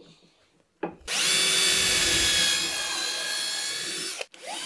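Power drill boring into wood. It spins up about a second in, runs steadily for about three seconds, stops, and starts again near the end. The first run is with the bit turning in reverse to avoid tear-out.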